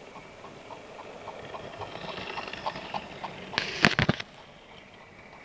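Hornby OO gauge model train running on sectional track: a light, regular clicking of about four clicks a second that grows louder as the train approaches. About three and a half seconds in comes a brief, loud clatter as the wagons pass close by, which then cuts off suddenly.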